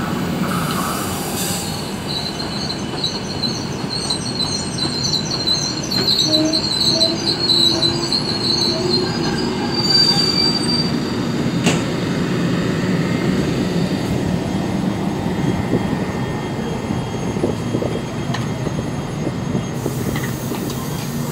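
PKP Intercity passenger coaches rolling slowly along the platform and braking to a halt, with the low rumble of the carriages throughout. A high-pitched, wavering squeal sounds through the first half and ends with a short sharp squeal about ten seconds in.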